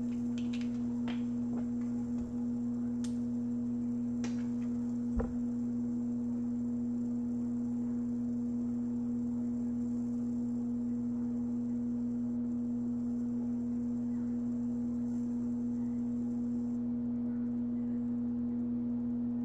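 A steady electrical hum, one low tone with overtones at an unchanging level. A few light clicks and a short knock in the first five seconds, from small parts being handled.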